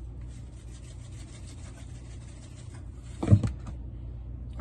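Pepper grinder being twisted over the vegetables, a dry rasping grind, followed about three seconds in by one short knock.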